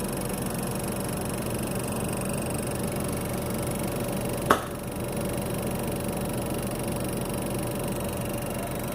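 Outdoor unit of a Samsung Smart Inverter split air conditioner running with a steady noise and a steady mid-pitched tone. This is the loud, abnormal noise the owner says comes from inside the machine. A single sharp click sounds about halfway through.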